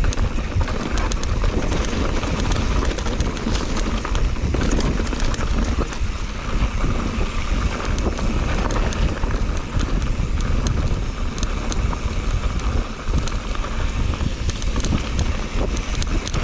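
Mountain bike riding over a dirt forest trail: tyres rolling over dirt, leaves and small stones, the bike rattling with many short clicks over bumps, and wind buffeting the microphone.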